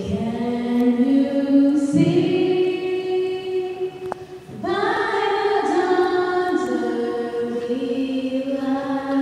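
Unaccompanied singing of a slow melody, long notes held for a second or two each, with a short break between phrases about four seconds in.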